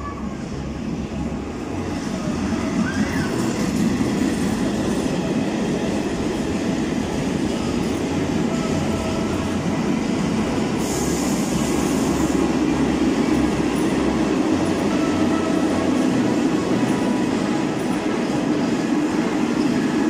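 Freight train of empty container flat wagons passing close by behind a Medway electric locomotive: a steady rumble of steel wheels on the rails that swells over the first few seconds and then holds.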